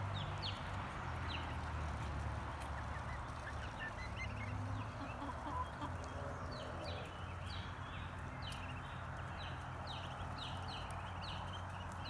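Backyard chickens and ducklings foraging: soft clucking and many short, high peeps that fall in pitch, more of them in the second half, over a steady drone of periodical cicadas.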